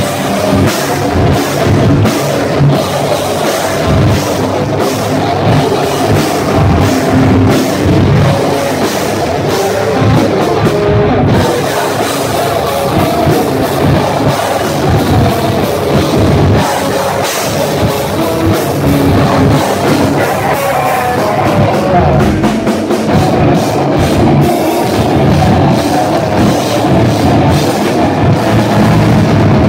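Heavy metal band playing live at full volume: distorted electric guitars over fast, pounding drums.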